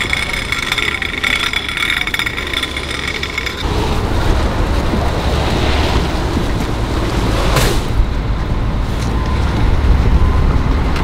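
A fire engine's diesel engine runs steadily at idle with a thin, steady high whine. About a third of the way in it becomes a louder, deeper rumble. A single sharp knock comes a little past the middle.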